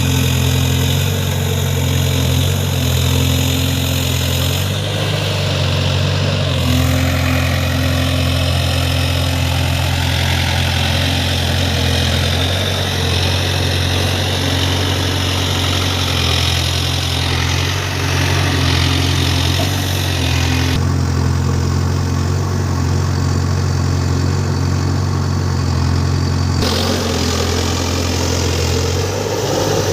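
Diesel engine of a JCB 3DX backhoe loader running steadily at work, a constant low hum. About two-thirds of the way through, the higher part of the sound drops away abruptly for about five seconds, then returns.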